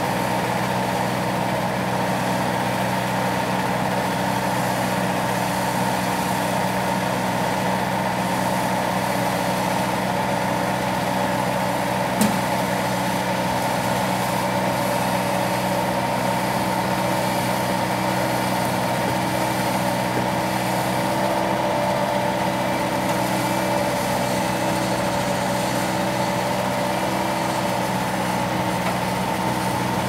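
Bobcat T190 compact track loader's diesel engine running steadily as it drags a heavy engine skid across the ground. A single sharp knock about twelve seconds in.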